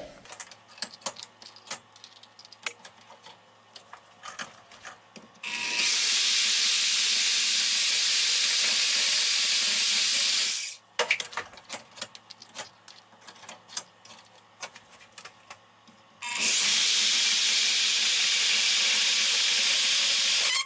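Portable bandsaw cutting through a welded aluminium box section with a worn blade that is about toast. There are two runs of steady, hissy cutting noise, one of about five seconds starting several seconds in and another starting near the end. Between them come light scattered clicks and taps as the saw and part are handled.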